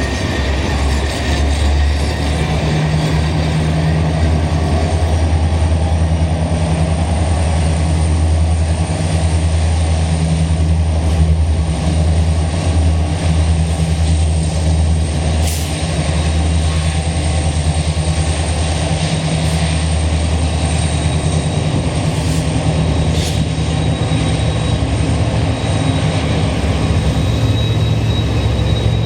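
Norfolk Southern freight train rolling past, with a steady low diesel locomotive drone under the continuous noise of the cars on the rails.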